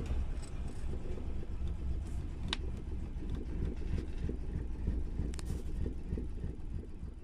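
A van's engine and tyres giving a low, uneven rumble as it rolls slowly along a rough dirt road, heard from inside the cab, fading as it slows almost to a stop near the end. Two sharp clicks sound, one about two and a half seconds in and one about five seconds in.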